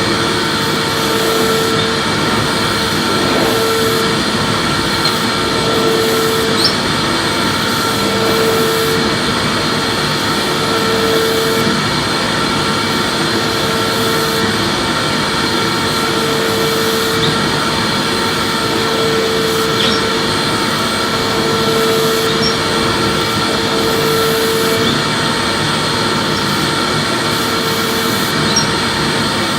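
Electric vacuum cleaner running steadily as it is pushed over the floor: a constant rushing noise with a steady whine, and a lower hum that swells and fades about every two and a half seconds.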